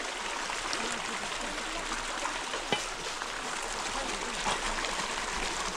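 Fast-flowing stream rushing over rocks, a steady rush of water, with one sharp knock about two and a half seconds in.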